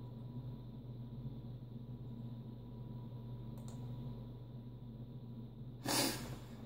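Steady low hum of a running desktop computer, with a faint mouse click or two. About six seconds in, a short, loud burst of noise stands out above the hum.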